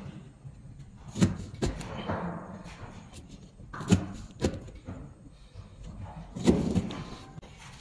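Hammered Damascus steel knife chopping and shaving slivers off the edge of a thick stack of paper: about five sharp knocks as the blade strikes down, each followed by a short scraping cut.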